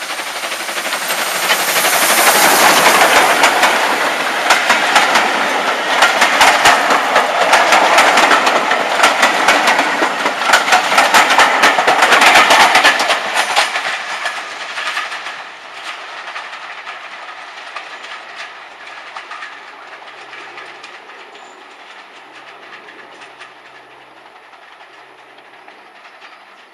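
Caledonian Railway No. 828, an 0-6-0 steam locomotive, hauling Mark 1 coaches past at close range. The sound is loudest as the engine goes by about two seconds in. Then comes a run of clickety-clack as the coach wheels cross the rail joints, which fades away after about fourteen seconds as the train recedes.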